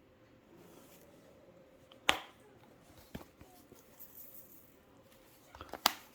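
Kitchen utensils and containers knocking while brine ingredients are added. A sharp knock comes about two seconds in and a fainter one a second later; near the end a few quick taps lead into another sharp knock.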